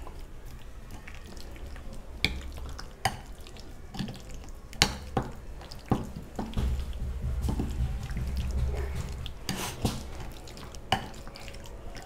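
Hand mixing boneless chicken cubes into a wet yogurt and spice marinade in a glass bowl, with scattered sharp clicks.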